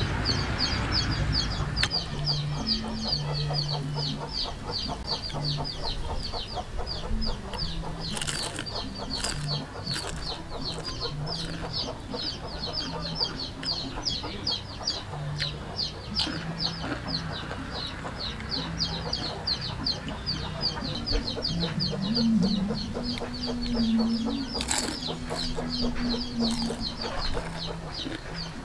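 Chickens clucking close by, with a steady run of high, quick peeping chirps, about four a second. A few sharp crunches near the start and near the end come from bites of crispy battered fried mushroom.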